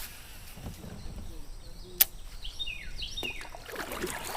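Kayak on a river: paddle strokes and water splashing, with a single sharp click about two seconds in and a few short falling bird chirps near the end.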